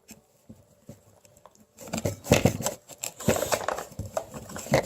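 Scraping and picking at a wet, softened dig-kit block with a small digging tool: a few faint ticks, then from about two seconds in a busy run of short scratchy strokes and clatter.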